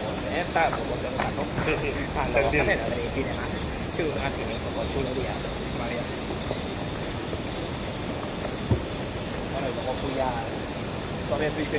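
Steady, high-pitched chorus of cicadas buzzing without a break, with faint voices talking in the first few seconds and again near the end.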